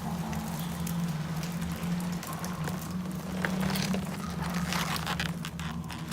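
A steady low hum with scattered crackling, crinkling and clicking noises over it.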